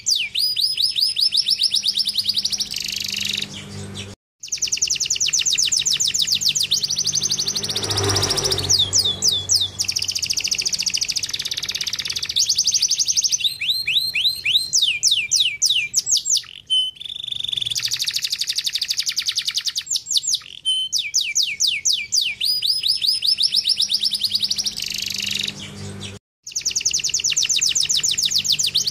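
Domestic canary singing long, rapid trills of quick falling whistles, phrase after phrase, breaking off abruptly twice.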